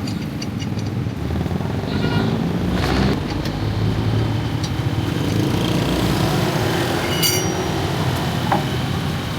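Road traffic: motor vehicles, cars and motorcycles, running and passing by as a steady low rumble, with a few scattered clicks and a brief high squeak about seven seconds in.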